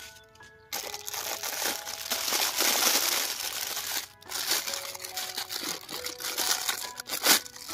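Thin plastic bag crinkling and rustling as a toy tractor model is handled and unwrapped, with a brief pause about four seconds in and one sharp, louder crackle near the end.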